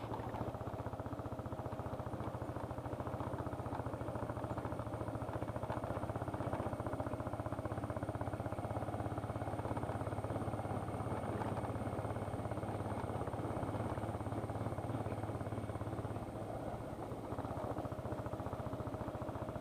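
A small petrol vehicle engine running steadily at low, even throttle over a rough road, easing off briefly about three-quarters of the way through.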